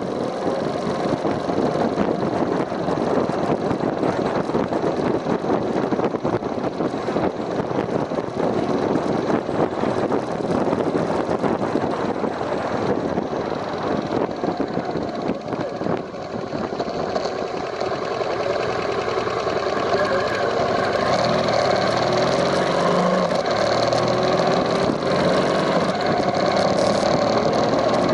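BMW R1200GS LC boxer-twin engine running, with its engine speed changing in the second half. This engine has an abnormal noise from the cylinder head that a part replacement did not cure.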